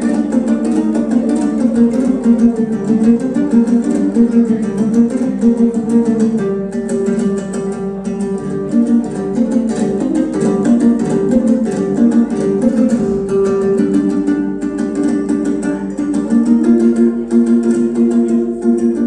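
Kazakh dombra music played live: quick strummed and plucked notes running through a repeating melody, the tune moving to higher notes partway through and back down near the end.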